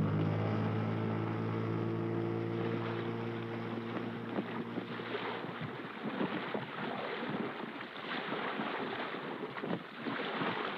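An engine running steadily that fades away over the first four or five seconds, giving way to a rough rushing noise with many crackles, typical of wind and water spray.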